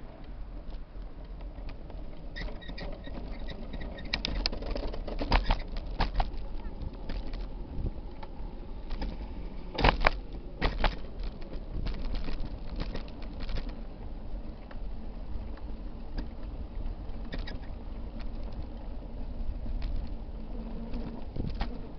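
Bicycle riding over a paving-block cycle path: a steady low rumble of tyres on the blocks with irregular rattling knocks as the bike jolts over the joints. A few sharper jolts come about five and ten seconds in.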